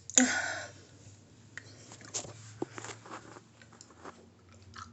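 Handling noise: a short breathy burst near the start, then scattered faint clicks and rustles over a steady low hum.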